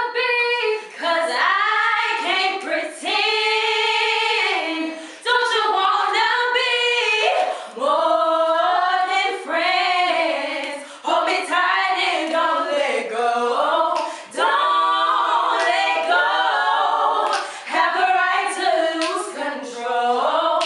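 A four-woman vocal group singing a cappella in close harmony, with no instruments.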